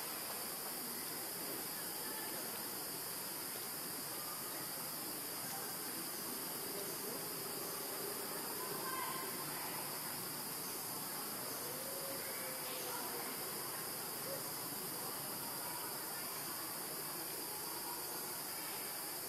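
Steady chorus of insects: a continuous high-pitched shrilling that does not change.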